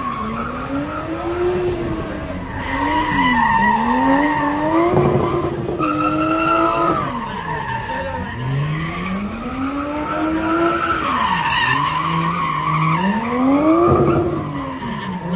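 A car spinning donuts: its engine revs up and down repeatedly while the tyres skid and squeal.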